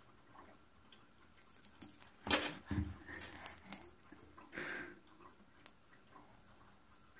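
Bead necklace clicking and rattling as a baby handles it, scattered small clicks with a louder knock and dull thud about two and a half seconds in.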